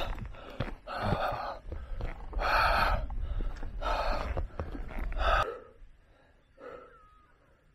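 A person breathing heavily and loudly right at the microphone, about four hard breaths roughly a second and a half apart, as from the exertion of a steep uphill hike; the breathing stops about five and a half seconds in.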